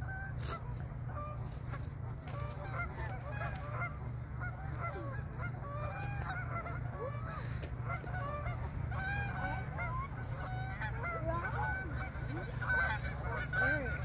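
A flock of Canada geese honking, with many short calls overlapping and growing busier toward the end, over a steady low rumble.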